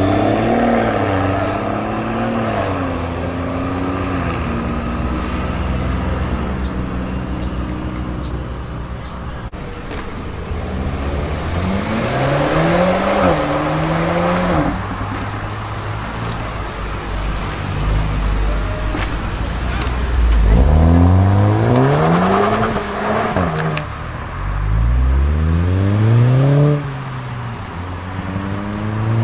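Tuned cars accelerating hard away one after another: a BMW 1 Series hatchback, an Audi S3 saloon and an Opel Insignia. Each engine's note climbs steeply and drops back at a gear change, with the loudest pulls about halfway through and near the end.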